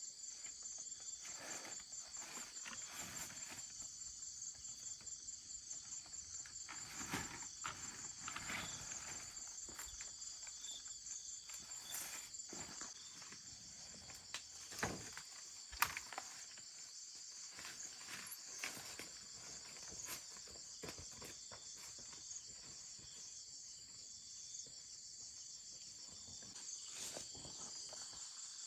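Steady high-pitched insect chorus, crickets or cicadas, with scattered knocks, clicks and rustles from handling and footsteps; the sharpest click comes a little past the middle.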